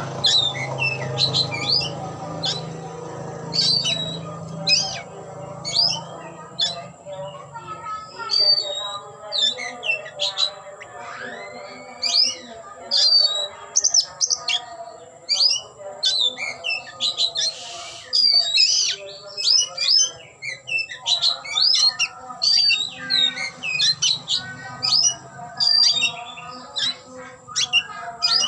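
Oriental magpie-robin singing continuously: a long, varied run of rapid sharp chirps and whistles.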